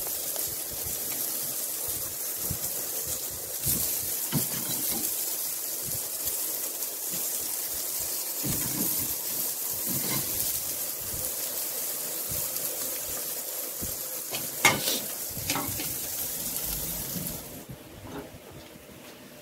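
Salmon steaks sizzling on a hot grill grate, with a few sharp clinks and scrapes of metal utensils against the grate, the loudest about three-quarters of the way in. The sizzle drops away near the end.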